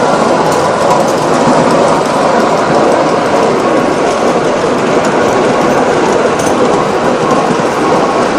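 Ride-on miniature railway train running steadily along its track, a continuous rumble and clatter of wheels on the rails heard from aboard the train.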